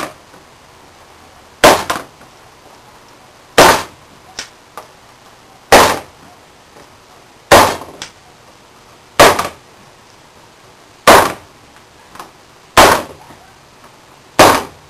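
A punch (a leather punch used as a center punch) struck through pegboard holes into plywood, marking shelf-pin hole positions: eight sharp strikes about two seconds apart, some followed by a faint smaller click.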